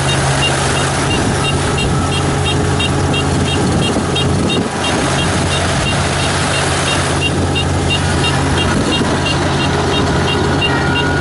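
Kubota ER447 combine harvester running: a loud, steady engine and machinery hum with a regular high ticking about three times a second.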